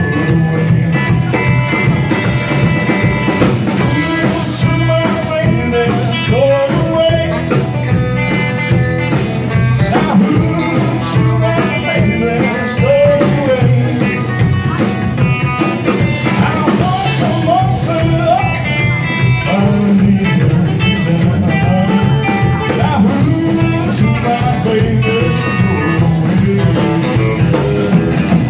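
Live rockabilly band playing: upright double bass, acoustic guitar, electric guitar and drum kit together, at a steady beat.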